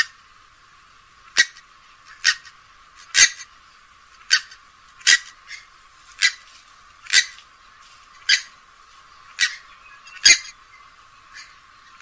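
Grey-headed swamphen calling: a series of short calls, about one a second.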